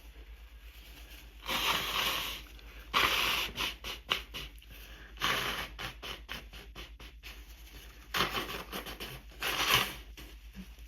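A person sneezing forcefully again and again, about five sharp bursts a second or two apart, with quick clicking sounds between some of them: an allergy attack set off by spring pollen.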